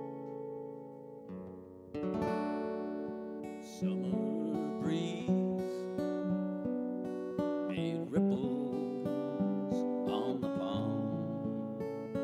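Solo acoustic guitar: a ringing chord fades, then about two seconds in a new picked and strummed passage begins, with fresh chords struck every second or two.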